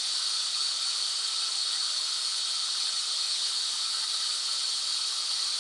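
White noise playing steadily: an even, high-pitched hiss with little bass.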